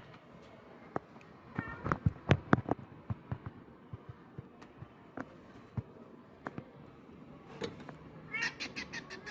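Domestic cat meowing: a short meow about two seconds in and a longer, higher one near the end. Scattered sharp clicks and knocks in between, the loudest just after the first meow.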